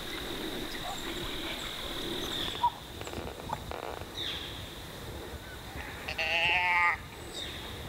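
A whitetail deer's bleat: one nasal, wavering call lasting just under a second near the end. A sharp click comes a few seconds earlier, and a faint steady high-pitched tone runs underneath.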